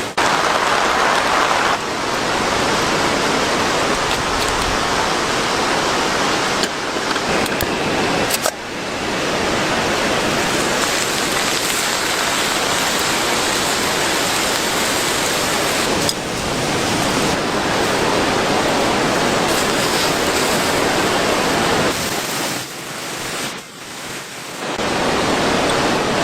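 Heavy rain pouring steadily as a dense hiss, with a few abrupt drops in level and a quieter stretch near the end.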